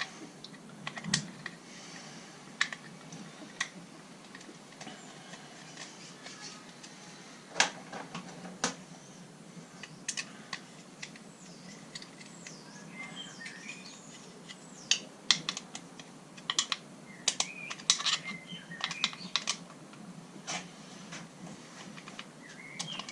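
Small plastic-and-metal clicks and scrapes as wires are fed into a light switch's terminals and the terminal screws are worked with a screwdriver, irregular and light, with a few brief squeaks about halfway through.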